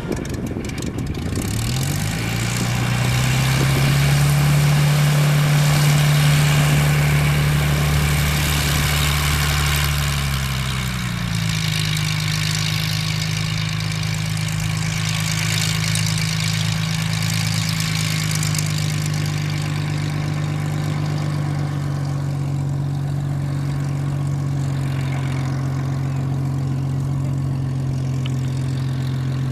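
Hawker Hurricane's Rolls-Royce Merlin V12 engine and propeller running: the revs rise about two seconds in and hold, then ease back about ten seconds in to a steady, slightly lower note.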